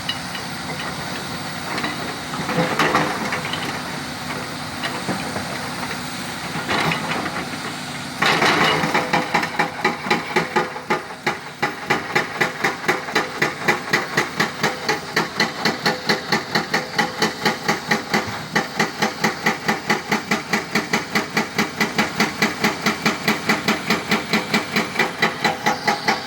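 Excavator engine running steadily. About eight seconds in, a fast, regular mechanical pounding starts and continues, about three knocks a second.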